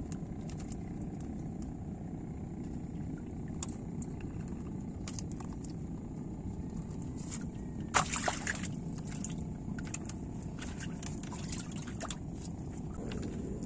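Lake water trickling and splashing as a fishing net is hauled in, with scattered small splashes and one sudden louder splash about eight seconds in, over a steady low rumble.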